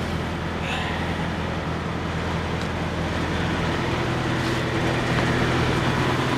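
Steady hum of an idling diesel semi-truck engine, with an even rush of noise from diesel being pumped into the truck's fuel tank.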